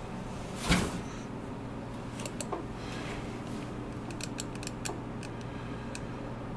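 Quiet room tone with a steady low electrical hum, one short rustling noise a little under a second in, and a few faint, sharp clicks scattered through the middle.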